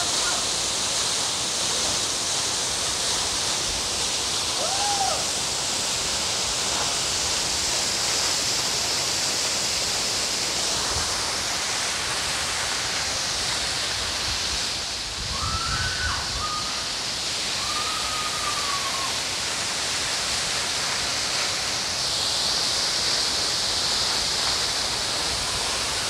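Waterfall making a steady, even rush of falling water, with a few faint short calls heard over it.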